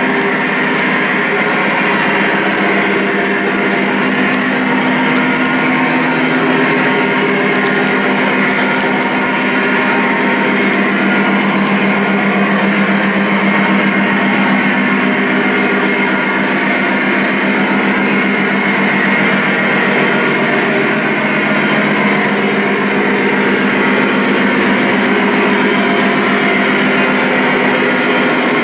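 Lionel Legacy O-gauge Union Pacific ES44 model train running: a steady diesel engine sound from the locomotives' sound system, mixed with the rumble and light clicking of freight cars rolling on the track.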